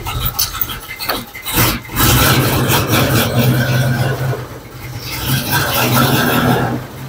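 The 1976 Dodge CruiseAir motorhome's engine running just after start-up with a steady low hum. It grows louder in two long spells, about two seconds in and again around five seconds in.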